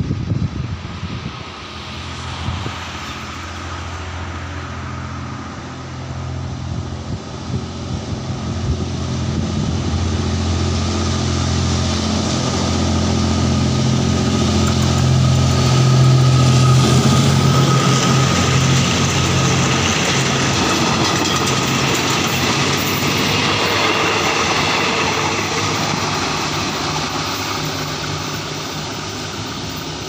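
SRT GEK-class General Electric diesel-electric locomotive pulling a passenger train past. Its deep engine drone builds to its loudest about halfway through as the locomotive goes by, then fades slowly as the carriages roll past and away on the rails.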